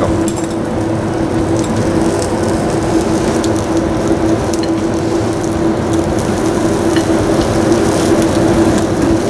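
Syrniki (cottage-cheese pancakes) sizzling steadily in a pan with a little oil over low heat, with small crackles; near the end a spatula slides under one to turn it.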